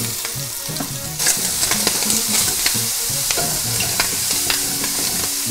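Diced onion, celery and bell pepper (the Cajun trinity) frying in oil with browned ham in a skillet, sizzling steadily while being stirred, the utensil scraping and clicking against the pan. The sizzle gets louder about a second in.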